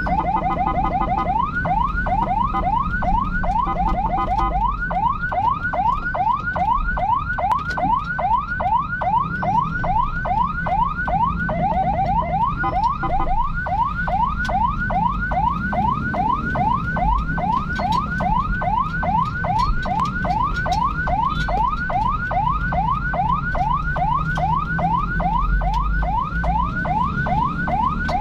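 Electronic siren sounding continuously in fast, repeating upward sweeps, about three a second, over low engine and road rumble. During the first few seconds a second, steady tone sounds alongside it.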